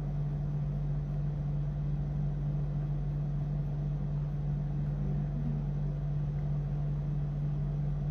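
A steady low hum, one even tone with a deeper drone beneath it, unchanging throughout.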